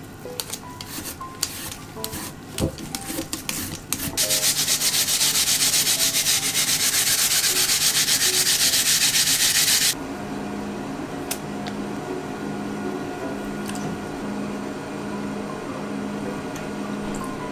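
Chinese yam (nagaimo) being grated on a hand grater: a loud, rapid, rhythmic rasping that starts about four seconds in, runs for about six seconds and stops abruptly. Before it come a few light scraping clicks from peeling the yam.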